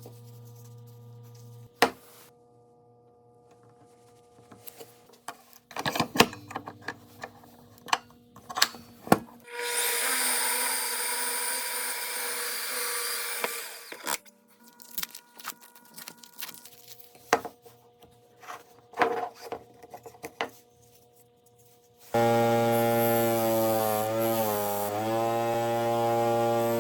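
Woodworking sounds: scattered knocks and clicks of wooden pieces being handled, then about ten seconds in a four-second stretch of rough hissing noise as the wood is worked. In the last five seconds an electric power tool's motor runs loudly, its pitch dipping twice.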